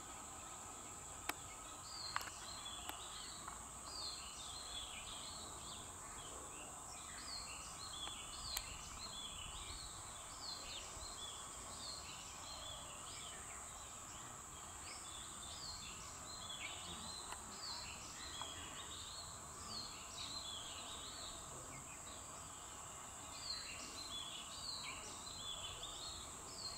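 Birds chirping in quick, repeated calls over a steady high-pitched insect drone, with a couple of short clicks in the first few seconds.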